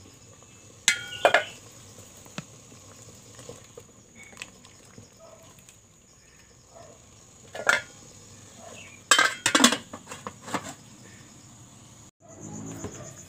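Large aluminium pot and lid clattering as the lid is lifted, ringing briefly, then a metal ladle stirring spinach in hot water and knocking against the pot, with a quick run of sharp metal clinks about nine to ten and a half seconds in as the lid goes back on. The spinach is being briefly blanched before cooking.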